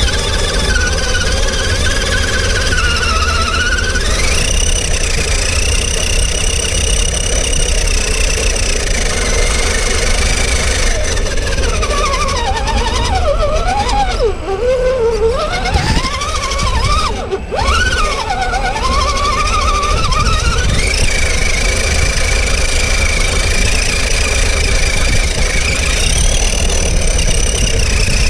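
Electric motor and gearbox whine of a 1/10 scale RC rock crawler driving over mud and rocks. The pitch holds steady, then wavers up and down sharply with the throttle in the middle, over a steady low rumble, heard close up from a camera mounted on the truck.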